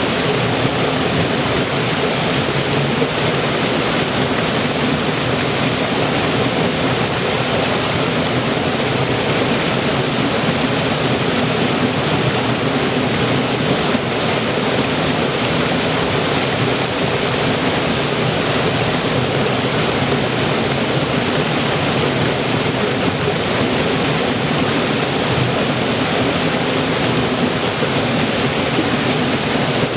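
River water flowing and rushing in a steady, even stream, with no change in strength.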